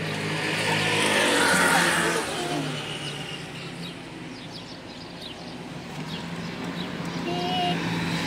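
A car passes by, its noise swelling to a peak about a second or two in and then fading, over a steady low hum.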